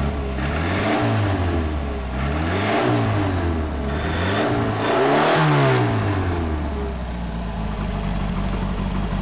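V8 engine test-running without its governor, revved up and dropped back three times, then settling to a steady idle.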